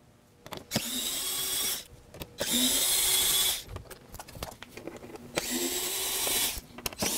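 Cordless electric screwdriver running in short bursts of about a second each, with brief pauses and small clicks between them, backing out the Torx T25 screws that hold a Can-Am Spyder F3's plastic side panel.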